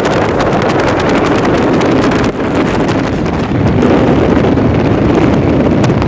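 Wind buffeting the microphone of a moving motorcycle, over the steady run of its engine. It is loud and continuous, with a brief dip about two seconds in.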